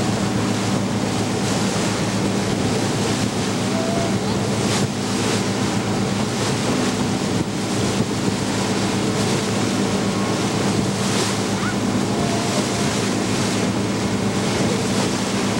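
Wind buffeting the camcorder microphone in gusts over the steady low hum of a passenger boat's engine under way, with water rushing past the hull.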